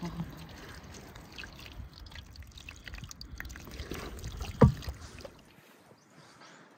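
Water pouring from a kettle spout and splashing over raw cattle feet in a metal basin, with one sharp knock a little past halfway. The splashing dies down near the end.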